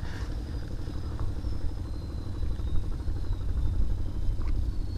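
Wind buffeting the microphone: a low, uneven rumble that swells and dips in gusts.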